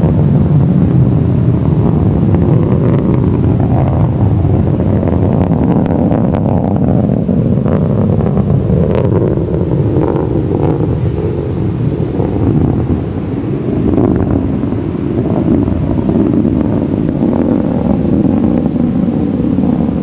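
Distant roar of a Delta II rocket's main engine and solid rocket boosters during ascent: a deep, steady rumble with scattered crackles.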